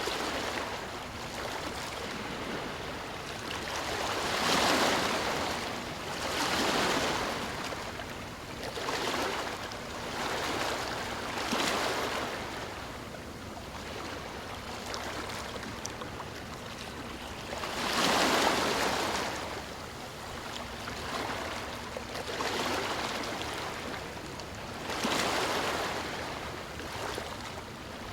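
Ocean waves washing onto the shore, one swell after another every few seconds with a steady hiss of surf between them; the biggest waves break about four and a half seconds in and again near the middle.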